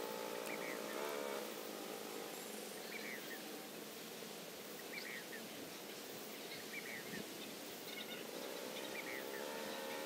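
Outdoor ambience: a bird giving short chirps every second or two over a steady background hiss.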